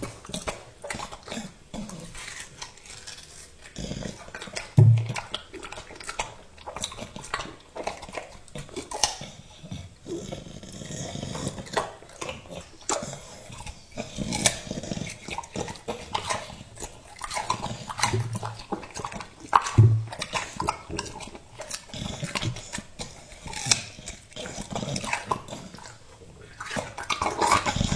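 American Bully dog chewing and slurping juicy watermelon, with wet, irregular bites and smacking clicks, and a few low thuds.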